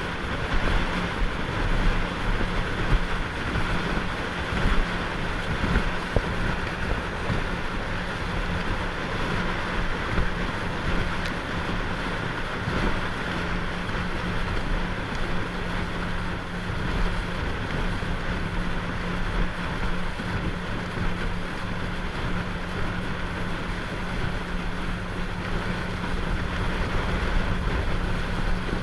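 Motorboat under way: a steady engine hum under the rush of water and wind buffeting the microphone.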